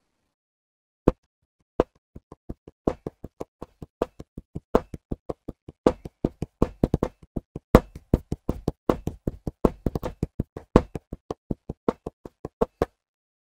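Fingers drumming a rhythm on a desktop: two single taps, then a steady run of quick taps and knocks with louder accents, stopping about a second before the end.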